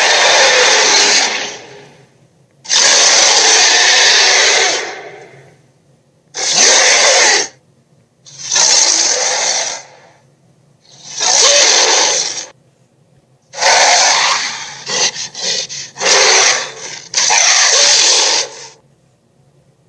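A series of dinosaur roar sound effects, T. rex and Carnotaurus roars played one after another. There are about eight rough, noisy roars, each one to two seconds long with short pauses between them; the last few come out choppier, in quick broken pieces.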